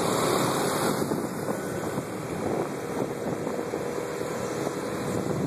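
Motor scooter running while riding, its engine drone mixed with wind buffeting the microphone, louder for the first second or so.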